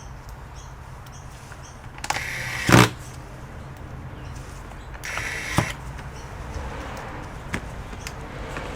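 Small electric screwdriver driving screws into a laptop case: two short whirring runs, each under a second long and ending in a sharp click as the screw seats.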